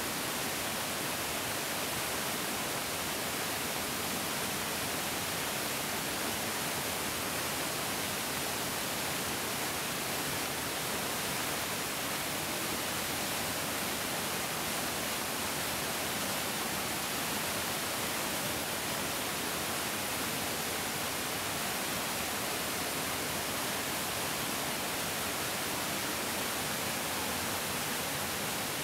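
A large mountain stream rushing steadily, a constant hiss of flowing water with no single splashes standing out.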